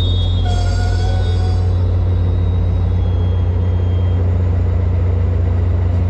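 Sounder bilevel commuter train cars rolling slowly past, a steady low rumble, with a faint high wheel squeal in the first couple of seconds.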